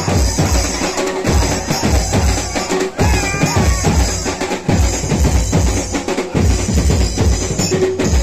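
Loud drum-heavy music with a steady, heavy bass-drum beat.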